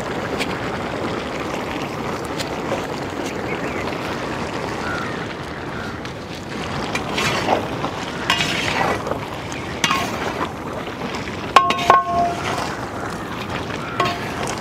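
Metal ladle stirring chicken curry in a large metal pot, scraping through the pieces over a steady hiss. Near the end it knocks against the pot a few times with short metallic rings.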